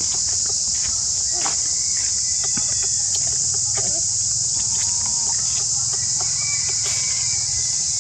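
Steady, high-pitched buzzing of an insect chorus that does not let up, with scattered faint clicks and a few short chirps over it.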